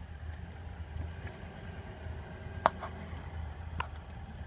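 Range Rover L405 engine running at low revs as the SUV crawls through deep mud ruts, a steady low rumble. Two sharp clicks a little past halfway, about a second apart.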